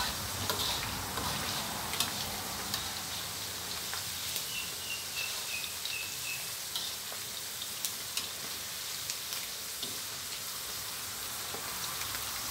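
Sun-dried beef and pandan leaves deep-frying in a wok of hot oil: a steady sizzling hiss with scattered sharp clicks from the spatula stirring against the wok. About halfway through, a short run of six faint high chirps.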